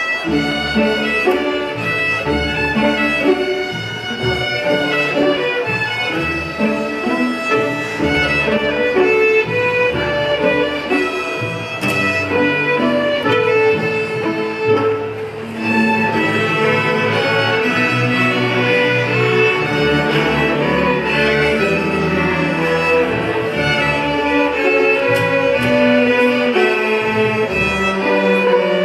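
A middle school string orchestra of violins, cellos and double basses playing a piece together, with a brief drop in loudness about halfway through between phrases.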